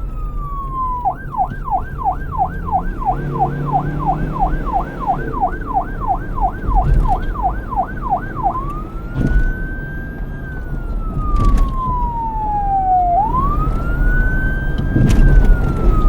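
Police car siren switching modes: a wail falls away, then a fast yelp warbles about three times a second for some seven seconds, then it goes back to slow wail sweeps that rise and fall. A low rumble runs underneath.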